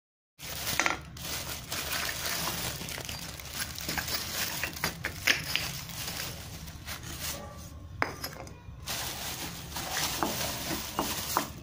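Plastic carrier bag and clear plastic wrap rustling and crinkling as they are handled, with the small terracotta clay pots (kulhads) inside clinking against each other. It starts suddenly about half a second in.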